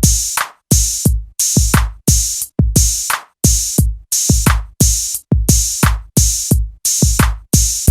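Electronic music with a steady drum-machine beat: repeated punchy kick-and-hi-hat hits that cut off sharply between beats.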